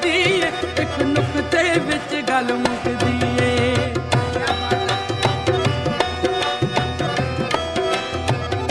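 Instrumental interlude of a Punjabi Sufi kafi: tabla playing a steady, busy beat under held accompanying tones, with a high wavering melody line ornamented with vibrato during the first four seconds.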